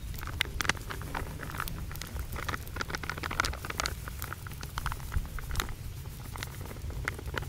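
Flour pouring onto a wide stainless steel tray: a soft pattering with many scattered small ticks and crackles, over a steady low rumble.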